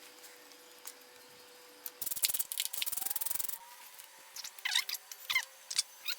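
Ratchet wrench clicking rapidly for about a second and a half as a bolt is worked loose during a motorcycle teardown, followed by a couple of short high chirps near the end.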